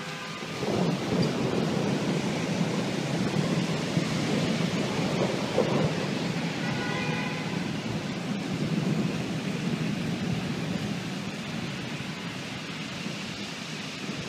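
A roll of thunder that starts suddenly under a second in, rumbles on for about ten seconds and slowly fades away, over the steady hiss of rain.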